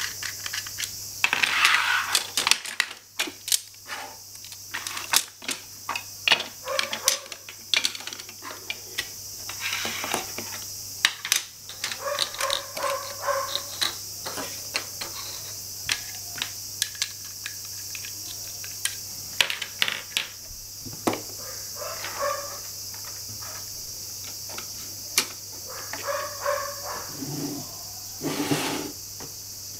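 Plastic and wooden toy tools clicking and knocking as they are picked up and set down on a wooden floor, in irregular taps and clatters throughout. A steady low hum and hiss lie underneath.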